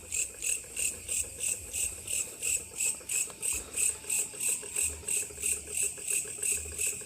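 An insect chirping in a steady, even rhythm, about four short high chirps a second.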